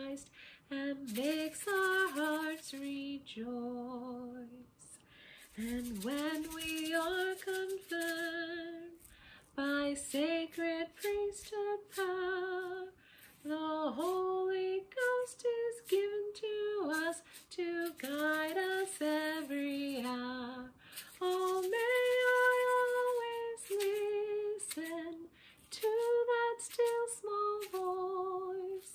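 A woman singing a song unaccompanied while shaking an egg shaker, its short rattles keeping time with the singing.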